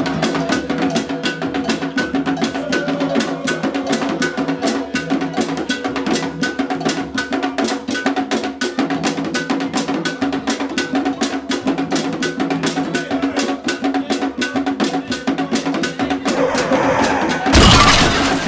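Background music with a steady drum and percussion beat. Near the end a loud burst of noise lasting about a second cuts in over it, as the train strikes a car on the track.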